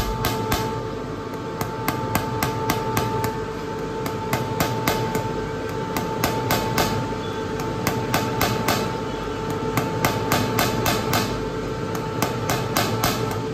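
Diesel injector test bench running: a Delphi common-rail injector clicking rapidly and evenly, about three clicks a second, over the steady hum of the bench's pump motor.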